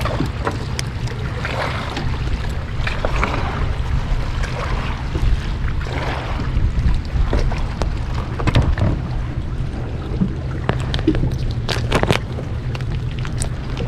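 Steady low rumble on a fishing boat, with scattered sharp knocks and clicks.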